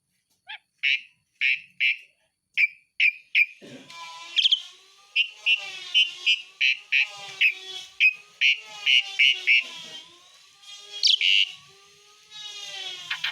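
Pied starling (jalak suren) singing: a string of sharp whistled notes about two a second, then from about four seconds in a fast, dense rush of whistles and chatter. This is the rapid 'besetan' song, filled with mimicked calls ('isian').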